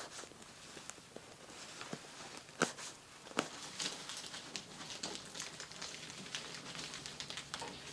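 Rustling and crinkling of sheet material being handled, with irregular light clicks and taps, the sharpest about two and a half and three and a half seconds in.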